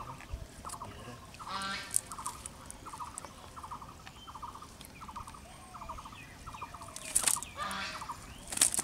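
Birds calling: a rapid, chattering call repeated about twice a second, with a few louder, harsher calls about 2, 7 and 8.5 seconds in.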